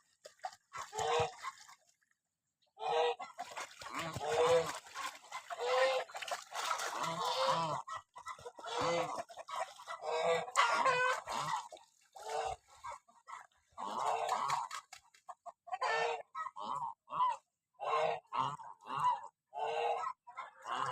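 Lionhead geese honking: a long run of short repeated calls, with a pause of about a second near the start.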